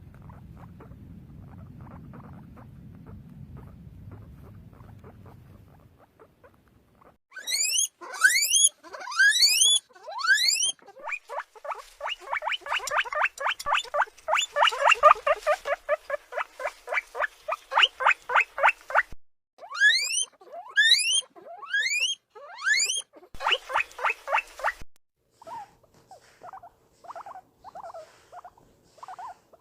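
Guinea pig wheeking: loud, steeply rising whistles, several in a row, broken up by fast runs of short squeaks at about five a second. Before the calls start there are about six seconds of low rustling with faint clicks, and the squeaks grow fainter near the end.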